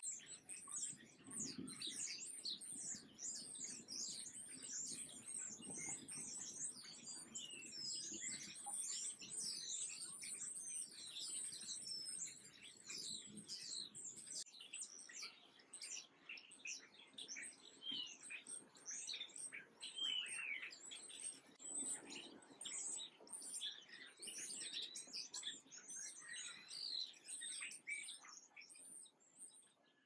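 A flock of small songbirds chirping: many short, high chirps overlapping in a busy chatter that thins out somewhat in the second half, with one longer falling call about twenty seconds in.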